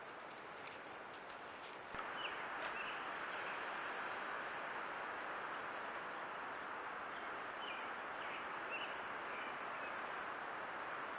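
Trail camera's steady microphone hiss with a thin high electronic tone, getting louder about two seconds in, with a few faint short bird chirps over it.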